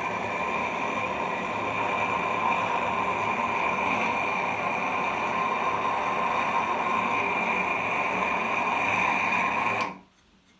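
Handheld gas blowtorch flame burning with a steady hiss while heating a 15 mm copper pipe elbow joint for soldering. It cuts off abruptly near the end.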